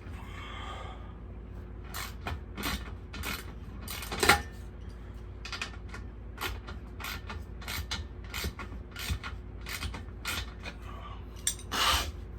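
Hand tools working on a mini bike engine during teardown: a run of sharp metallic clicks and knocks, with a short creak at the start, a louder knock about four seconds in and a brief scrape near the end.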